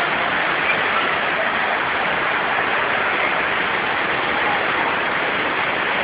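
Waterfall pouring into a rocky pool and stream, a steady, even rush of falling water.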